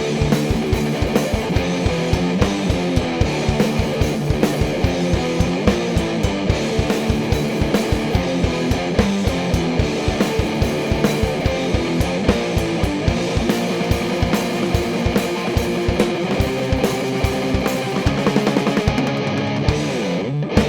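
Electric guitar through a Vick Audio Violet Ram's Head fuzz pedal playing a heavily distorted rock riff over a drum kit keeping a steady beat.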